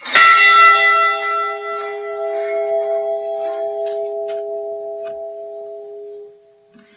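Model of the Edmund Fitzgerald's ship's bell struck once, tolled for one crew member's name. It rings with a long, slowly fading tone, the bright upper notes dying first and the low hum lasting about six seconds.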